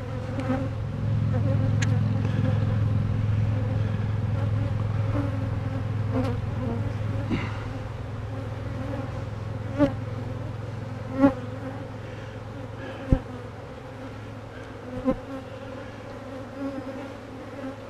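Honeybees buzzing as a steady, dense hum around an open hive, louder at first and easing off after the middle. A few short sharp knocks come in the second half.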